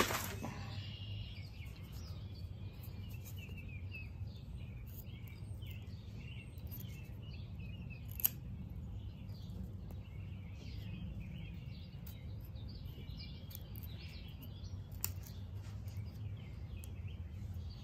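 Cold Steel Rajah III folding knife whittling a wooden stick: faint scraping cuts, with one sharp click about eight seconds in. Birds chirp in the background over a low steady hum.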